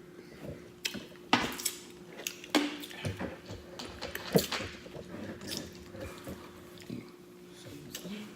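Close-up mouth sounds of eating: wet chewing and lip smacking as a string of irregular sharp smacks and clicks, over a steady low hum.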